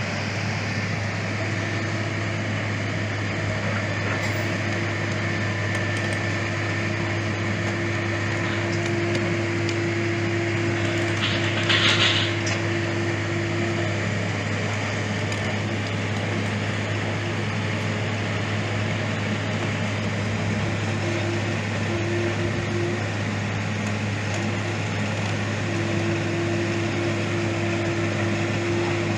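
A heavy construction machine's engine running steadily, with a short hiss about twelve seconds in.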